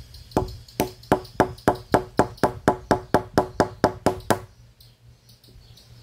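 Kitchen knife chopping on a wooden table: a quick, even run of about sixteen sharp knocks, roughly four a second, that stops about four seconds in. The blade is being worked against a hard jatobá seed to cut it open.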